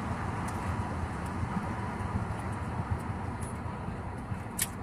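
Cabin noise of an Airbus A320-family airliner rolling on the ground: steady jet engine hum over a low rumble from the wheels on the pavement. A short sharp click sounds near the end.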